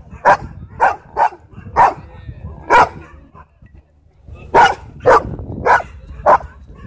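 Large dog barking: a run of five sharp barks, a pause of about a second and a half, then four more.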